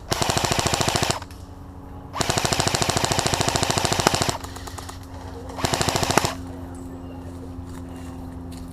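Airsoft electric rifle firing three full-auto bursts of rapid shots, the middle one about two seconds long and the last one short.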